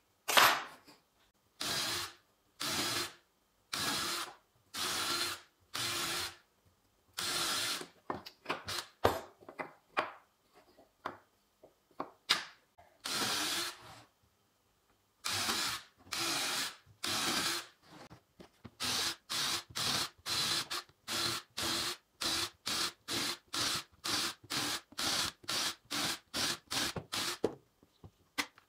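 Cordless drill boring small holes into a wooden board, one short burst of the motor per hole. The bursts come faster and shorter in the second half, about two a second.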